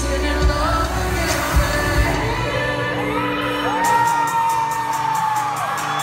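Live pop band and a female lead singer heard from within the audience, with fans whooping. The deep bass drops out about half a second in. The singer holds one long high note from about four seconds in while a light, even ticking beat comes in.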